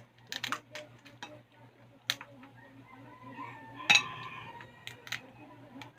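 Scattered clicks and clinks of cutlery and dishes while eating, with the loudest, sharpest knock about four seconds in.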